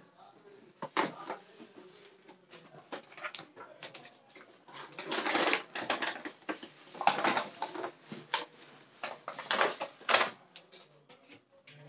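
A cardboard toy box and its clear plastic blister tray being handled and pulled apart: irregular crinkling, rustling and scraping in several bursts.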